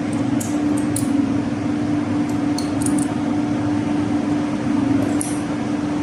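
Steady machinery hum, one constant drone over broad noise, with a few light metallic clinks of tools or parts on metal.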